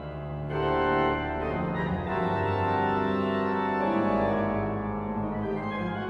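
Organ playing a contemporary piece with a full registration: dense sustained chords that shift every second or so, joined by a deep pedal bass note about four seconds in.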